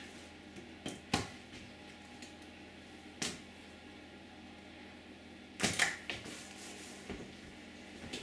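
Foil crumble trays being lifted off a baking tray and set down on a worktop: a handful of sharp clicks and knocks, the loudest cluster about two-thirds of the way through.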